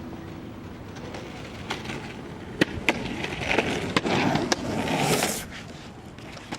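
Several sharp clacks and knocks, then a rough scraping rush of noise from about three seconds in that stops near the end.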